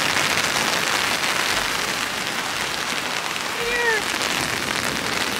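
Steady heavy rain from a storm, falling as an even, dense hiss.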